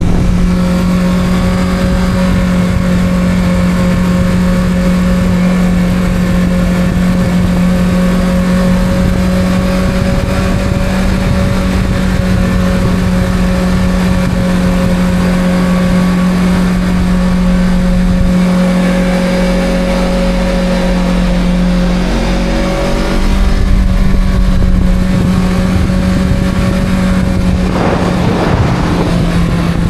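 Kawasaki Z650 parallel-twin engine with its stock exhaust, held at steady revs in a tunnel so the note holds one pitch. Roughly three-quarters of the way in, the revs shift slightly and the note gets a little louder. Near the end there is a brief rush of noise.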